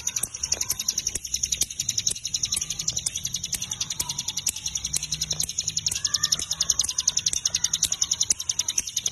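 Ciblek gunung (cigun) singing lively, a rapid unbroken chatter of sharp high chips, with a few lower arching notes about six seconds in.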